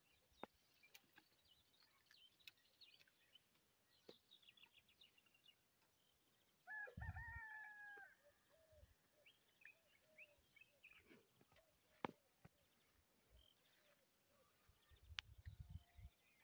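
Faint rooster crowing once, a single call lasting about a second and a half, over scattered chirping of small birds. A single sharp click comes a few seconds after the crow.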